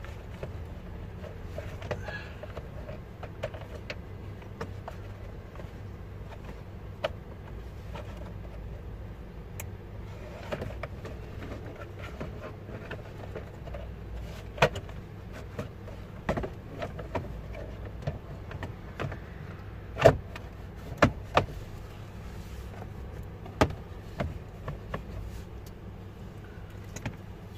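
Scattered clicks and knocks of a car's plastic lower dashboard cover being fitted back under the steering column, over a steady low hum.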